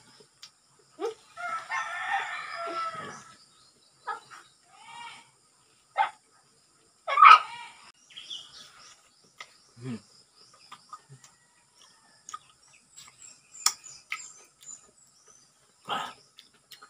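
A rooster crows once, about two seconds long, starting about a second in. A loud short call comes near the middle, with scattered small clicks and clucks around it.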